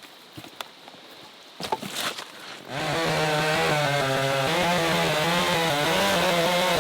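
A few knocks and clatter, then just under three seconds in a chainsaw starts up and runs loudly at high, steady revs with a slight waver.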